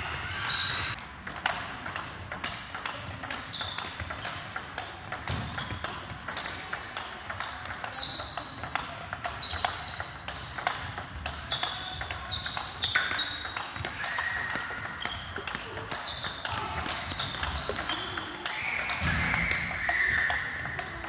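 Table tennis rally: the plastic ball clicking sharply off rubber bats and the table in quick succession, a few hits a second.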